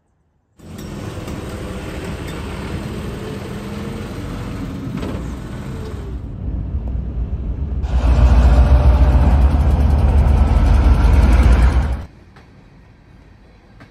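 Diesel engine of a hi-rail service truck running on the rails close by, with a heavy low rumble that grows louder partway through and then cuts off suddenly.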